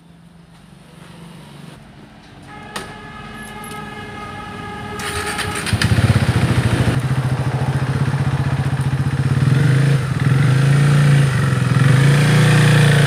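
KTM RC 390's single-cylinder engine starting about six seconds in and then running steadily. Before it, a click and a few seconds of a steady high hum.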